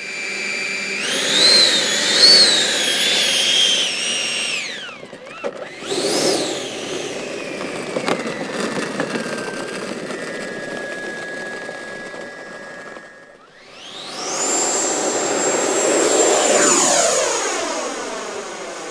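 E-flite Viper 90 mm electric ducted fan jet's fan whining, its pitch rising and falling with the throttle. About fourteen seconds in it spools up loud, as for the takeoff run, and holds a high steady whine.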